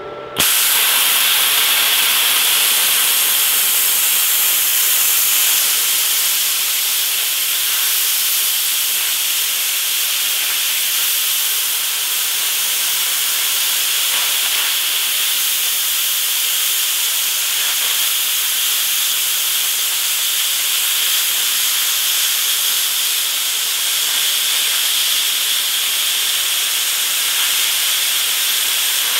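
Hitbox HBC45 plasma cutter's arc cutting through thick steel plate: a loud, steady hiss that starts abruptly about half a second in as the arc strikes.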